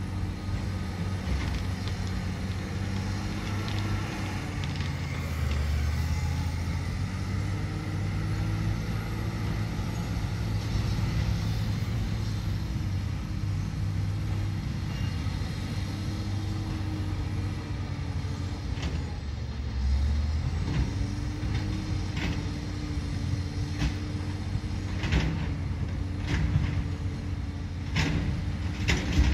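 Caterpillar D7 bulldozer's diesel engine running under changing load, its pitch and loudness rising and falling. A few sharp clanks come in the last few seconds.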